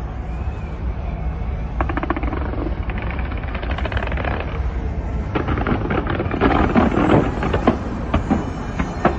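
Fireworks going off in rapid strings of bangs and crackles, growing denser about halfway through.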